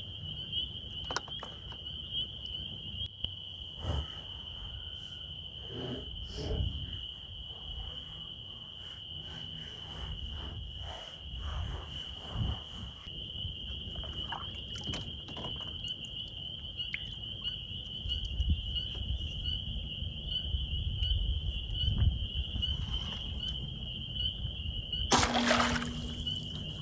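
A steady high-pitched chorus of crickets and other insects trilling without a break, over low wind and water noise and a few small knocks against the kayak. Near the end comes a sudden loud rush of noise lasting about a second, as the bowfishing arrow is shot into the water at a carp.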